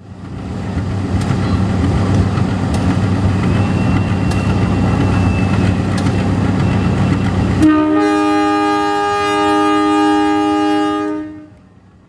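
CC 201 diesel-electric locomotive passing, its engine running steadily with a few sharp clicks. About eight seconds in, its horn sounds one long blast of about three and a half seconds, then the sound fades out.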